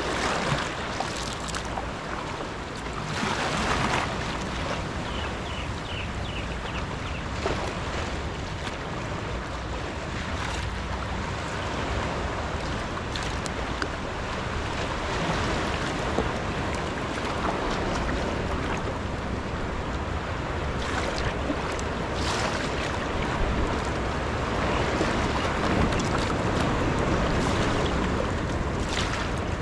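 Wind buffeting the microphone over water washing along a Stellar S18 G2 sea kayak's hull, with paddle blades splashing into the sea every few seconds.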